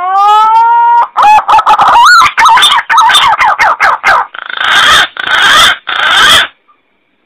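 Green pigeon (punai) call played as a bird-hunting lure: one long rising whistled note, then a quick run of short wavering notes, ending in three harsh, rasping notes.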